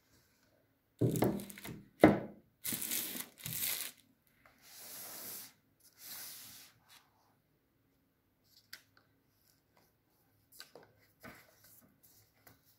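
Plastic packaging being handled during an unboxing: several loud bursts of crinkling and tearing, then two softer swishes and a few light taps near the end.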